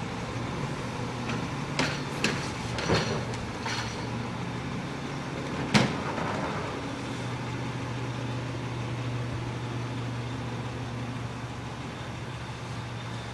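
Garbage truck engine running steadily at a standstill, with a cluster of clanks and knocks about two to four seconds in and one sharp bang near six seconds as recycling carts are handled and emptied.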